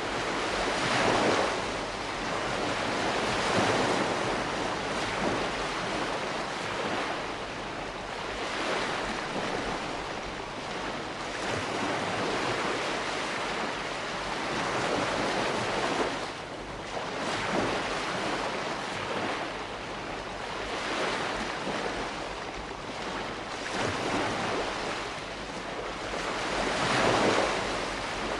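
Calm sea washing onto the shore: a steady rush of surf that swells and eases every few seconds as small waves break and draw back.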